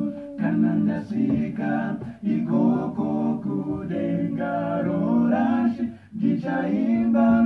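Male vocal group singing a cappella in harmony, several voices holding chords together, with short breaks between phrases about two seconds and six seconds in.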